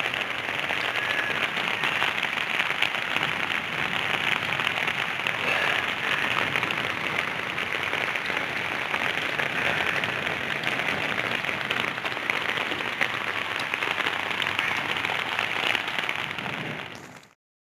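Steady rain pattering densely on the ground and roofs. It fades out near the end.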